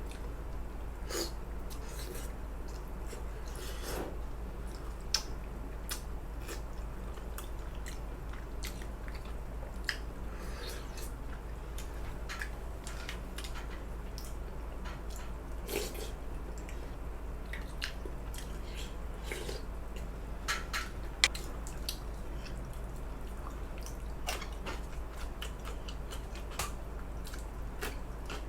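A person chewing samgyetang (ginseng chicken soup with rice porridge), close to the microphone, with many scattered short, sharp clicks over a steady low hum.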